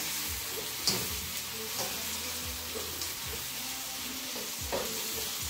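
Sliced carrots and tomatoes sizzling in oil in a frying pan, stirred with a spatula, with a few brief scrapes of the spatula against the pan.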